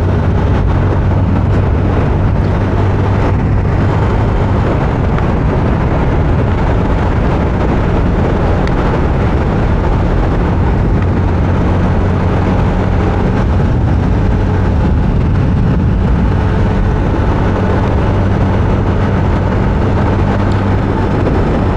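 Motorcycle running at a steady cruising speed: a constant engine hum under a loud, even rush of road and air noise on the microphone.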